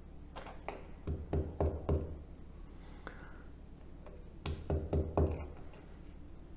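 A small plastic needle bottle and its cap knocking on a tabletop: two quick runs of about four knocks each, a few seconds apart, with a few lighter plastic clicks before the first run.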